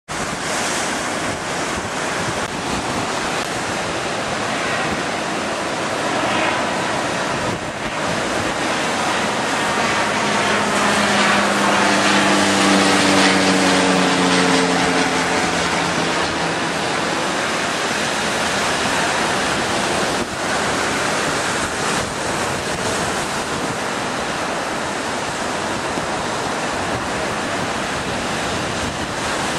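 Heavy surf breaking continuously, with wind buffeting the microphone. Around the middle, an engine passes by: a drone that swells and slowly falls in pitch before fading.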